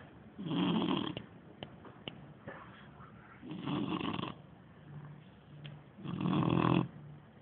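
Shar-pei dog snoring in its sleep: three snores, each under a second long, about two and a half seconds apart, with quieter breathing between them.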